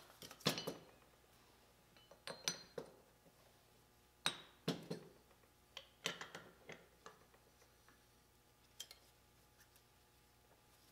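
Scattered light clinks and taps of steel and aluminium engine parts, 7.3 Powerstroke pistons and connecting rods, being picked up, fitted together and set down on a metal workbench, with quiet gaps between the knocks.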